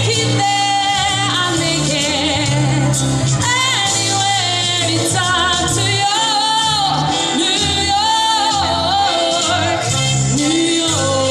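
A woman singing live into a microphone over instrumental accompaniment, her held notes wavering with vibrato.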